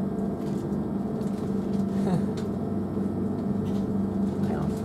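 Steady hum inside the carriage of a stationary Class 387 Electrostar electric train: its air conditioning and onboard equipment running at the platform.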